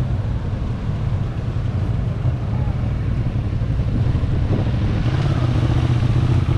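Outdoor street noise dominated by a steady low rumble, growing slightly louder near the end, with faint voices.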